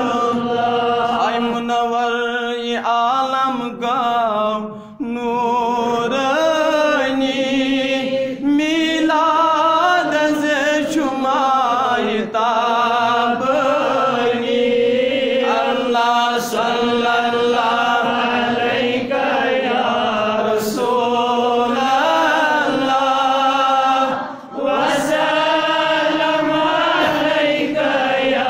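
A man singing a Kashmiri naat solo with no instruments, in long, held, wavering melodic lines, broken only by a couple of brief gaps, the clearest about 24 seconds in.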